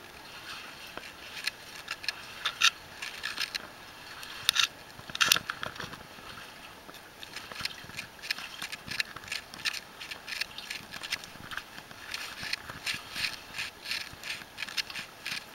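Someone scrambling and stepping through a flooded mine passage: irregular clicks, knocks and scrapes, which come thicker in the second half.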